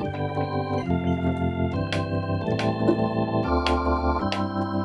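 Organ preset on a Yamaha Montage M synthesizer playing a chord progression over a bass line, the chords changing about once a second. Each new chord starts with a sharp click.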